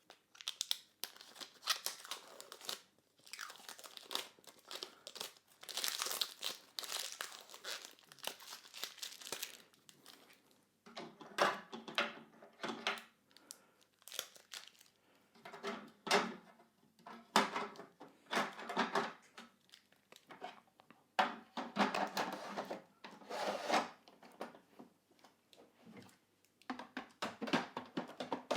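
Blue protective plastic film being peeled and torn off a stainless steel coffee-machine drip tray and crumpled, in irregular bursts of crinkling and tearing rustle.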